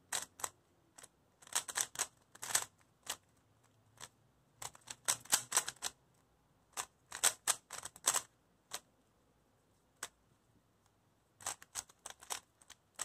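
MoYu Meilong 3C plastic 3x3 speed cube being turned quickly by hand: rapid clusters of sharp clicks as the layers turn, coming in bursts with short pauses between them.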